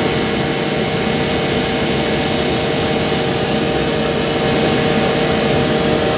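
Double-chamber hammer-mill pulverizer running steadily: a loud, even mechanical noise with a steady hum through it.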